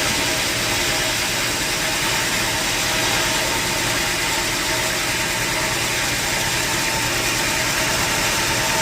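Sawmill machinery running steadily: an engine drone under an even noise with a constant whine.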